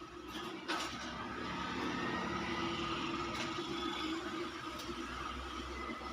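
A steady mechanical hum like a running motor or engine, with a few sharp clicks, the loudest under a second in.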